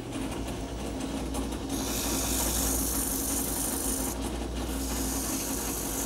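Sandpaper held against a pine table leg spinning on a wood lathe at about 1500 rpm: a steady sanding hiss over the lathe's low running hum. The hiss grows louder about two seconds in and eases briefly just after four seconds.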